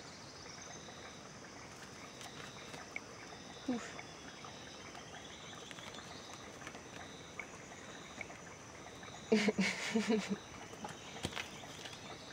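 Steady rainforest insect chorus: two constant high-pitched tones with a lower one pulsing on and off. About nine seconds in, a short louder vocal sound breaks in for about a second.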